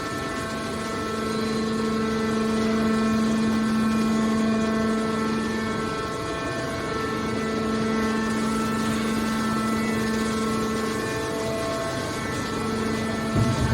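Hydraulic scrap metal baler's power unit running, a steady hum with a pump whine over it, and a short low thump near the end.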